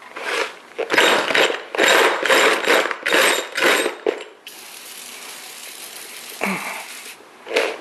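An aerosol can of oven cleaner being shaken, its mixing ball rattling in quick strokes about two to three a second, then a steady spray hiss for a couple of seconds as foam goes onto the engine parts.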